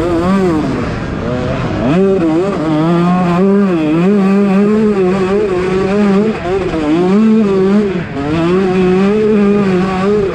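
KTM 125 SX two-stroke single-cylinder engine revving high while ridden, its pitch swinging up and down as the throttle is worked. It drops back about a second and a half in and picks up sharply, then dips briefly again about eight seconds in. The bike is being tested for a misfire and bog.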